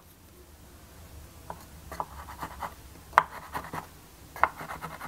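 Pencil scratching and ticking on a kydex holster shell, marking hole positions through a metal guide strip. It makes a run of short, faint scratches and ticks, with a couple of sharper ticks in the second half.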